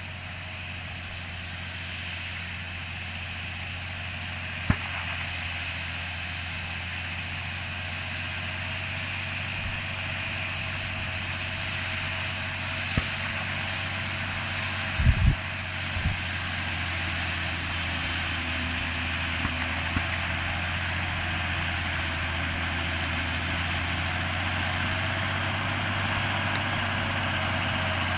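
John Deere 6530 tractor's diesel engine running steadily under load while pulling a four-furrow plough through the soil, growing louder as the tractor approaches. A few short knocks break in, the loudest a quick cluster about halfway through.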